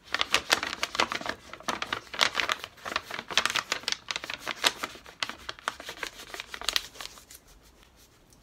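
Brown paper grocery bag crackling and rustling as it is rolled tightly into a stick between the hands, a dense run of crisp crackles that dies down about seven seconds in.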